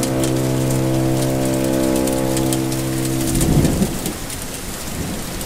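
Steady rain, with a hiss of falling drops and fine pattering ticks, and a low thunder rumble swelling about three and a half seconds in. Under the rain in the first part there is a steady humming drone with overtones that fades out as the thunder comes.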